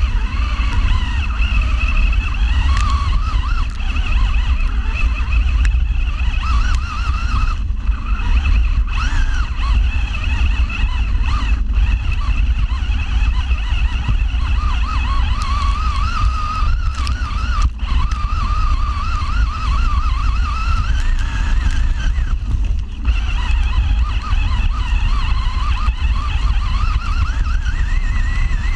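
Radio-controlled car's motor whining, its pitch rising and falling with the throttle and climbing near the end, over a heavy steady rumble of the chassis shaking on rough ground. Heard from a camera mounted inside the car's body shell.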